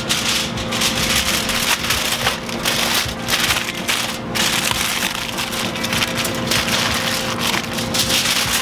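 Aluminium foil crinkling and crackling as hands fold and press it into a tight wrap, in a steady run of many small crackles.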